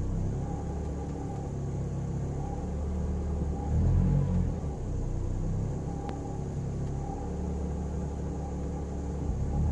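Mazda MX-5 Miata (NC) four-cylinder engine idling with a low, steady rumble that swells briefly about four seconds in and again near the end. The owner suspects a vacuum leak.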